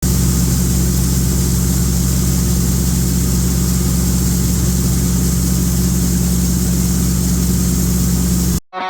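Large farm-machine engine running steadily at constant speed, then cutting off abruptly near the end.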